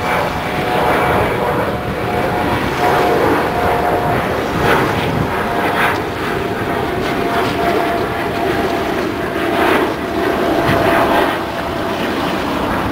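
Steady drone of a large engine with a thin, constant whine held through it.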